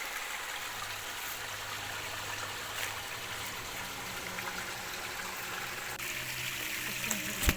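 Steady rush of running water from a mountain stream or waterfall, with faint low held tones underneath. A single sharp click just before the end.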